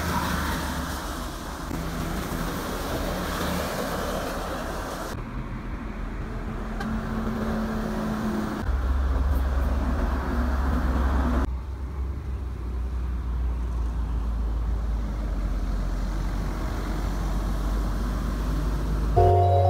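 Large intercity buses driving past on a wet highway: a deep engine rumble with tyre hiss from the wet road. The sound changes abruptly about 5, 9 and 11.5 seconds in as one passing bus gives way to the next.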